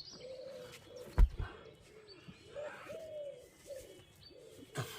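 A pigeon cooing, a run of soft hooting phrases. A dull thump about a second in and a sharp knock near the end.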